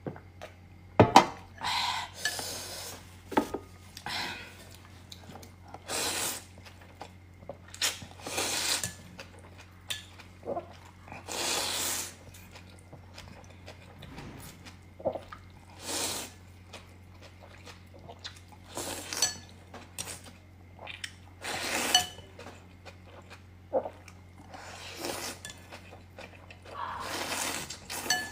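Close-miked eating: a series of separate slurps and chewing noises, each under a second, with sharp clicks of utensils against a bowl, over a steady low hum.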